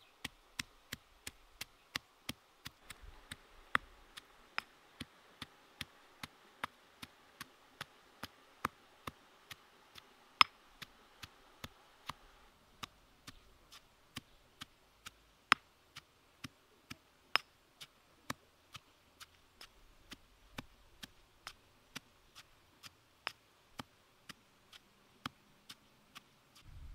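Pestle pounding red chili peppers in a stone mortar: sharp knocks at a steady pace of about two a second.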